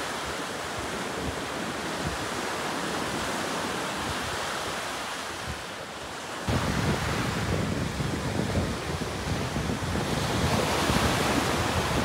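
Sea surf breaking and washing up a sandy beach, with wind rumbling on the microphone. About six and a half seconds in, the sound gets suddenly louder and heavier in the low end.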